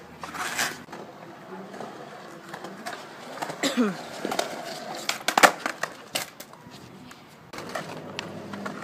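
Skateboard wheels rolling over concrete, with several sharp clacks of the board, the loudest about five and a half seconds in.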